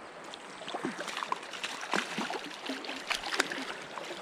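Splashing and sloshing as a rubber landing net scoops a hooked brook trout out of a flowing creek, in an irregular run of splashes with the sharpest one about three seconds in. The steady rush of the stream runs underneath.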